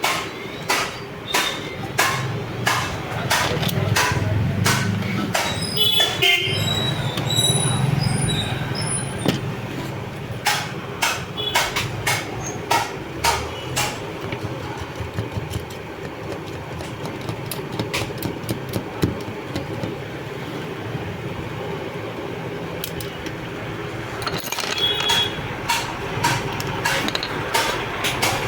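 Programme sound from a DD Free Dish set-top box played through a TV speaker while its audio output is being tested. It is a steady clacking about two a second over a low hum, with train-like sounds.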